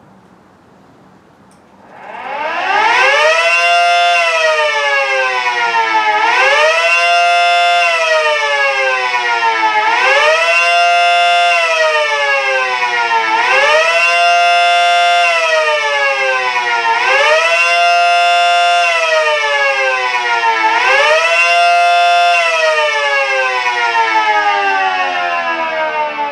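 Mini Model 5T miniature warning siren sounding a fast wail. It spins up about two seconds in, then its chord rises and falls six times, about every three and a half seconds, before winding down in pitch near the end.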